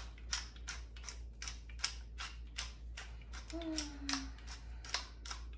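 Wooden pepper mill twisted by hand, grinding peppercorns: a steady run of dry clicks, about four a second.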